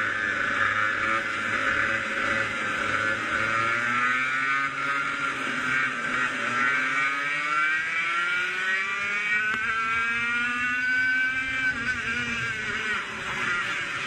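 100cc two-stroke racing kart engine at high revs. The revs drop about four seconds in, then climb steadily for several seconds and fall away again near the end.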